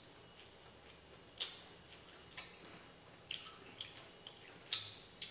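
Close-up eating sounds: about six short wet smacks and clicks of chewing rice and fried egg, irregularly spaced about a second apart.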